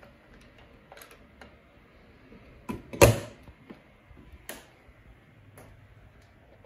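The small wooden doors of a 1912 Victor XVI phonograph cabinet being shut: two knocks close together about halfway through, then a lighter knock a second and a half later. Light clicks and creaks of the cabinet and its brass hardware come before the knocks.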